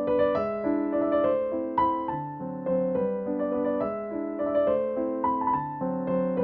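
Background music: a gentle melody played on piano or electric piano over sustained chords.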